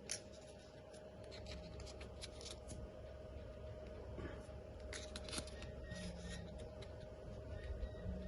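Toy cars and their packaging being handled: scattered light clicks and rustles, with a faint steady hum underneath.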